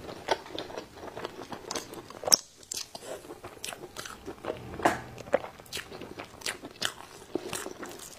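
Close-miked mouth sounds of a person chewing and biting saucy braised pig intestines: a run of irregular short clicks, the sharpest about two seconds in.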